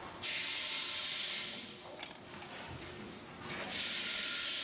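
Two bursts of hissing spray, like air or fluid forced out under pressure, each lasting about a second and a half, the second coming about two seconds after the first ends.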